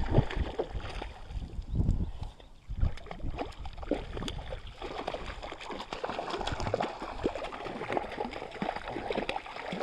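Water splashing and gurgling with small irregular splashes and clicks, with a few dull knocks in the first three seconds.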